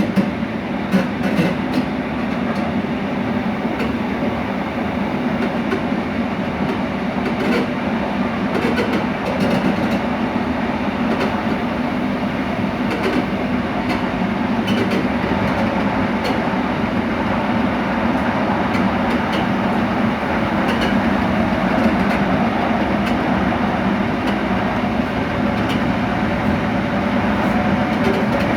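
Passenger train running at steady speed, heard at the coupling between its cars: a constant rolling noise from the running gear, growing slightly louder toward the end.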